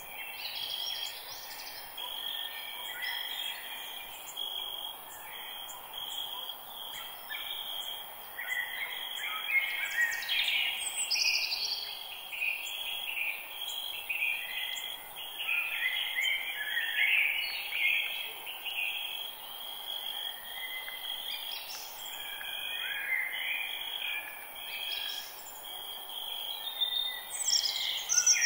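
Forest ambience: several birds chirping and warbling over a steady, high insect trill, with the birdsong busiest in the middle and loudest near the end.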